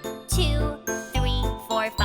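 Upbeat children's song music: a bright chiming melody over a bouncy bass that hits about twice a second.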